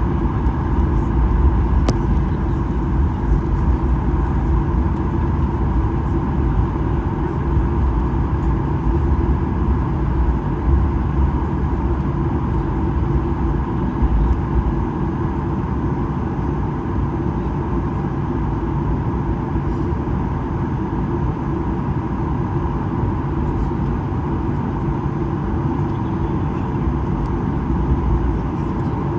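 Boeing 737-800 cabin noise: the CFM56 engines running steadily at low power with a constant hum and rush of air, without the rising run-up of the takeoff roll.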